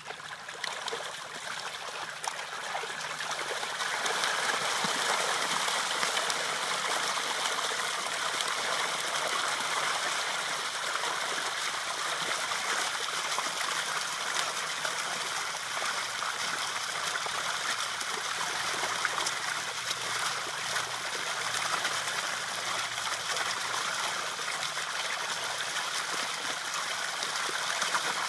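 Steady rush of running water, building over the first few seconds and then holding even.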